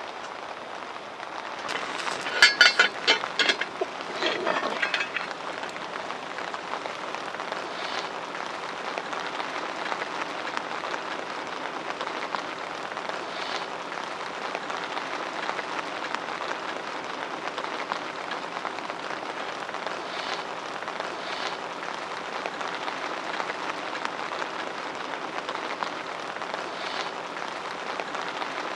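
Sharp metal clanks as a lid lifter lifts the heavy lid off a cast-iron Dutch oven, a quick cluster about two to five seconds in. This is followed by a steady crackling hiss.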